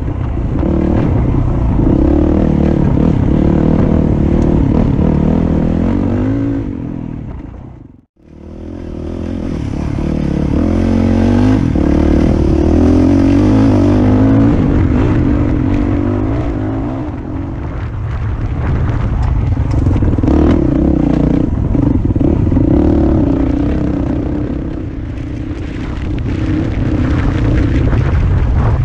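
Dirt bike engine running on a rough dirt trail, its pitch rising and falling as the throttle opens and closes. The sound drops out for a moment about eight seconds in, then the engine carries on.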